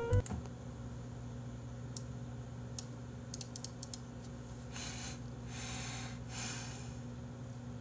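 A few scattered clicks of computer keys over a steady low electrical hum, with three short soft hisses about five seconds in.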